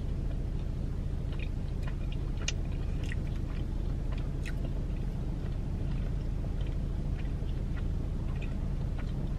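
Close-miked chewing of pizza, with small wet clicks and crunches of the mouth scattered through, over a steady low hum inside a car.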